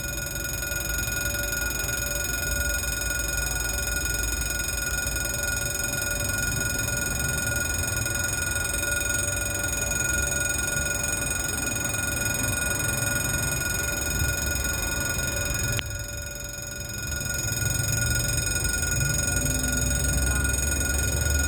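Saxby electric level-crossing bell ringing without a break, a steady high metallic ringing. It dips a little in level about sixteen seconds in, then comes back.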